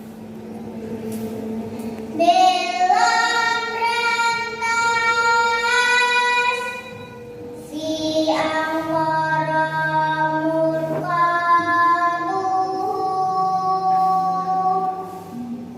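A child's solo voice singing a Javanese tembang in long, held notes that slide and bend between pitches, with short pauses for breath.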